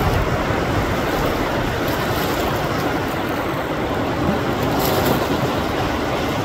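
Lake Superior surf breaking along the shore in a steady rush, with wind buffeting the microphone in low rumbles.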